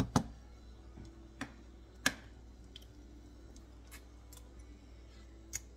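A wooden spoon knocks a few times against the rim of a stone-coated cooking pan, giving sharp separate clicks with the loudest just after the start. A faint steady hum runs underneath.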